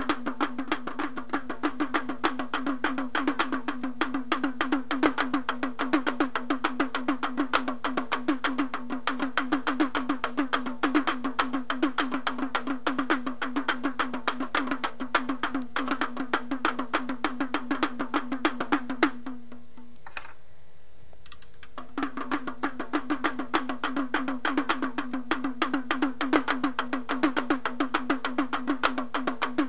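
Background music built on a fast, even percussive pulse of about six hits a second over a steady low tone. It drops out for about two seconds roughly two-thirds of the way through, then picks up again.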